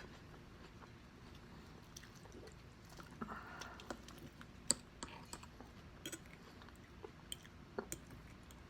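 A person chewing food close to the microphone: quiet, wet chewing with scattered soft clicks and one sharper click about halfway through.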